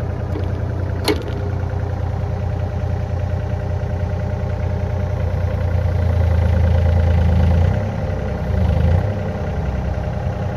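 Yanmar ViO35-6A mini excavator's diesel engine idling steadily, with a single sharp click about a second in. The engine note grows louder for about two seconds past the middle.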